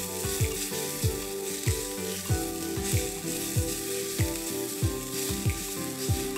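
Shredded carrots and onions sizzling in oil as they are stirred in an aluminium Afghan pressure cooker pot. Background music with a steady beat of about three thumps every two seconds plays over it.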